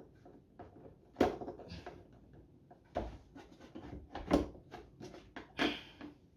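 Knocks and clicks of pressure-washer parts being handled and tugged while a stuck part is worked loose, with four louder knocks spread through and lighter clicks between.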